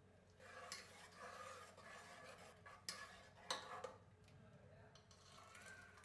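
Faint sound of a steel ladle stirring thick dal in an aluminium pressure cooker: wet scraping with a few sharp clinks of the ladle against the pot in the first four seconds, then quieter.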